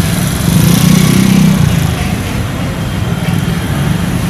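An engine running steadily, with a low rumble that swells from about half a second to a second and a half in.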